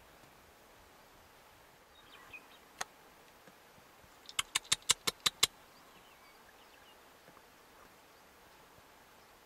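One sharp click, then a quick run of about eight loud, sharp clicks lasting about a second, close to the microphone.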